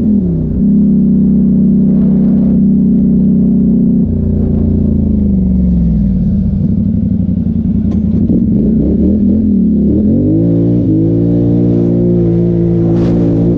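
A 2017 Polaris Sportsman XP 1000 ATV's twin-cylinder engine running under throttle on the trail. The engine note holds high, drops off about four seconds in, then revs back up at about ten seconds and holds.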